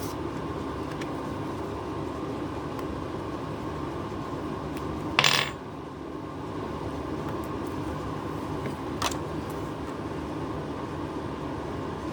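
A steady mechanical hum runs throughout. About five seconds in there is a short clatter of a small hard object, and near nine seconds a lighter click, as of tools or parts handled on a work surface.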